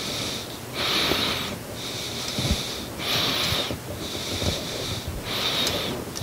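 Mini tubing cutter being turned by hand around a copper lube line, its cutting wheel scoring the tube with a rasping squeak on each swing, about once a second.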